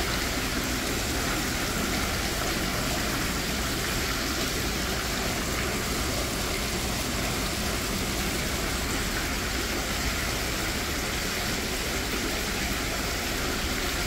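Tiered stone water fountain: water pouring in a sheet off the rim of a round basin and splashing into the pool below, a steady rushing with no change.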